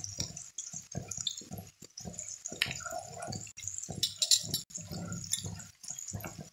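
Thick red sauce being stirred with a wooden spoon in a metal pot as it cooks: a run of short, irregular wet squelches and clicks.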